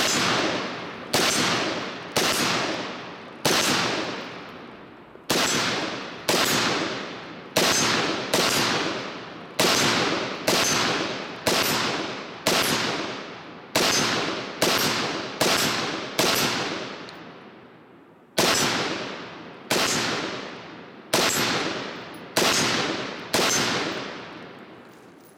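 HM Defense CommanderMB5 AR-15 rifle firing a string of about twenty single shots, roughly one a second, each with a ringing echo tail, and a pause of about two seconds after two-thirds of the string.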